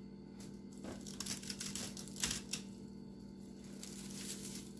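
Dried cilantro rustling and crackling as it is shaken and worked off a mesh dehydrator sheet into a glass dish, in irregular crisp crackles. The leaves tend to stick to the mesh.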